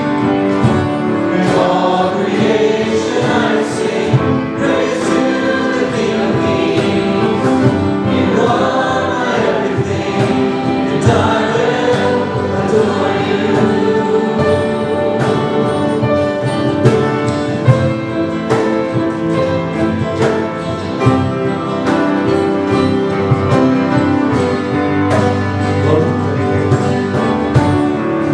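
A live worship song: several women singing together into microphones, backed by acoustic and electric guitars.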